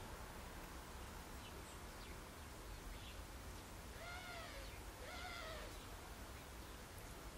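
A finch giving two long calls about a second apart, each rising and then falling in pitch, with a few faint short chirps before them.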